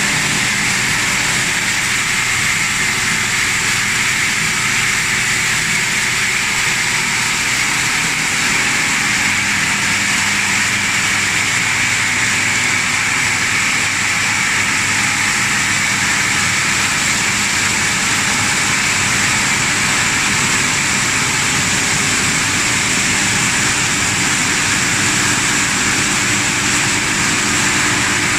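PET bottle washing line machinery running steadily: a constant motor hum with a loud, even hiss over it, unchanging throughout.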